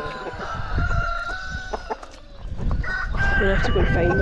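Several cockerels crowing, their long drawn-out crows overlapping: one about half a second in and another from about three seconds in, with clucking from the flock between them.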